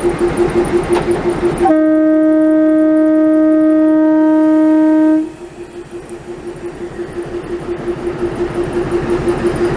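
Narrow-gauge diesel locomotive's horn sounding one steady note for about three and a half seconds, starting about two seconds in. Around it the locomotive's diesel engine runs with an even throb of about four pulses a second.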